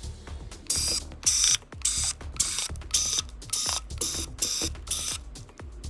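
Repeated short scraping strokes from hand-tool work on a phone, about two a second, each a brief hiss with a rasping, ratchet-like edge.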